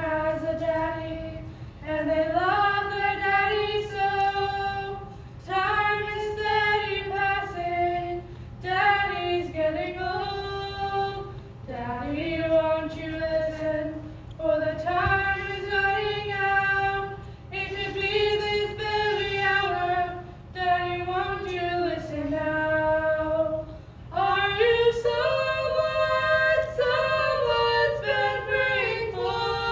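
Two female voices singing a cappella, with no accompaniment, in phrases broken by short pauses for breath. Near the end the two voices sing in two-part harmony.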